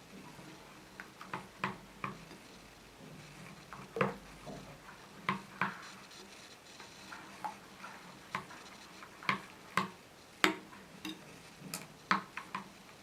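A spoon stirring a banana, water and honey mixture, clinking irregularly against the side of the container about once or twice a second.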